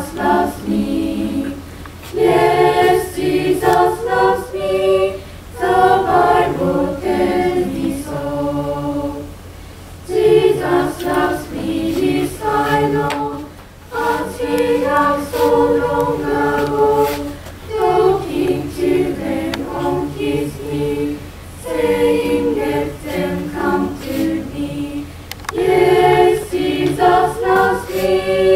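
A mixed choir of girls' and boys' voices singing together without instruments, in phrases broken by short pauses for breath.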